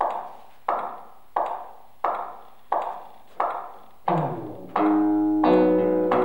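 Theatre music cue: a slow, even beat of dry knocks, about three every two seconds. About four seconds in, plucked guitar chords come in over it.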